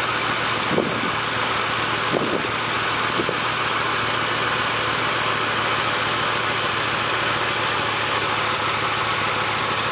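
Ford 4.6-litre V8 idling steadily and running rough with a misfire, traced to a coil boot with a broken clip.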